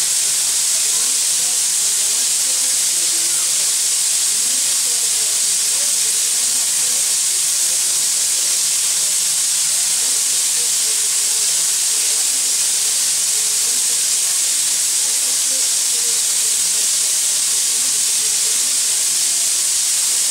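Steam locomotive L-4600 venting steam: a loud, steady hiss that keeps up unchanged throughout.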